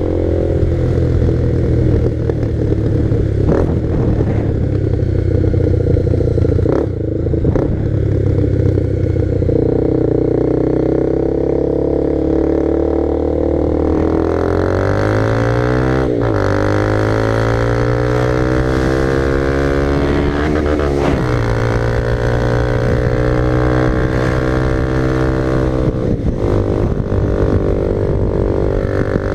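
Honda CB300R single-cylinder motorcycle engine running under way at fairly steady revs. About halfway through the pitch climbs, breaks with a gear change, and climbs again before levelling off.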